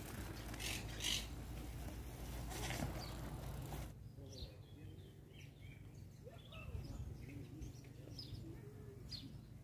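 Faint outdoor ambience: a steady rushing noise with a few short knocks that cuts off abruptly about four seconds in, followed by birds chirping faintly over a low steady hum.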